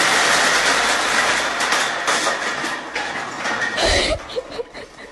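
A pile of aluminium drink cans tumbling down off a shelf and clattering and rolling across a wooden floor. The dense metallic clatter thins to scattered knocks, with a heavier thump just before four seconds.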